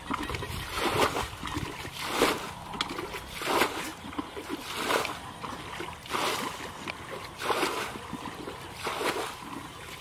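Feet wading through shallow muddy paddy water: a splash and slosh about every second and a quarter, in a steady walking rhythm.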